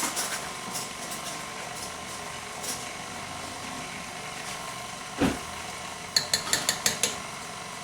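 Electric mixer running steadily at low speed, beating cookie dough of creamed butter, brown sugar, egg and vanilla. A single thump comes about five seconds in, and a quick run of sharp clicks follows a second later.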